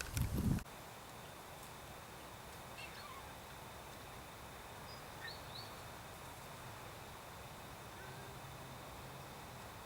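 Quiet farmyard ambience with a faint steady high tone and a few faint, short bird chirps, two of them close together about five and a half seconds in. A brief louder burst of noise right at the start.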